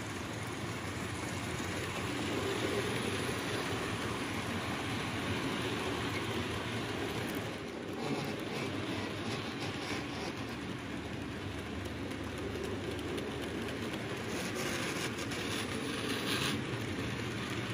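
Model freight train, an SBB Be 6/8 Krokodil model locomotive hauling a long rake of open wagons, running along the track: a steady rolling rumble of wheels on rails, with a patch of quick light clicks near the end.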